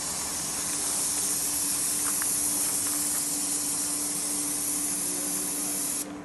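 Airless paint sprayer's gun spraying facade paint: a steady, loud hiss of atomising paint that cuts off suddenly near the end. A steady low hum runs underneath.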